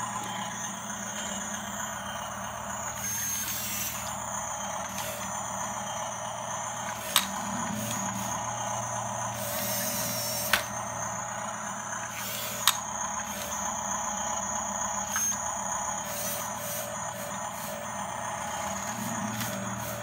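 Toy RC bulldozer's small electric drive motors and gearboxes running with a steady whirring hum, with four sharp clicks or knocks spread through the middle.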